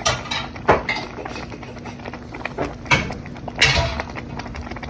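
Cooking spoon knocking and scraping against a pot a few times while the payesh is stirred, the loudest clatter a little past halfway, over a steady low hum.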